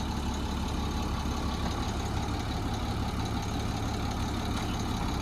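International DT466 diesel engine idling steadily, heard from inside the truck's cab, with the cab's climate fan blowing.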